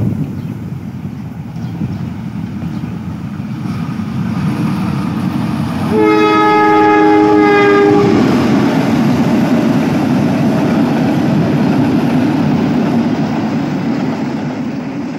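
A diesel locomotive hauling a passenger train passes close by through a station without stopping. About six seconds in its horn sounds a two-note chord for about two seconds, over the steady rumble of the engine and of the coach wheels on the rails.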